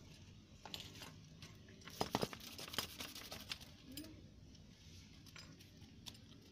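Live freshly caught fish, snakeheads among them, flopping in a plastic basin: scattered wet slaps and taps against each other and the basin wall, bunched about two to three seconds in and again near the end.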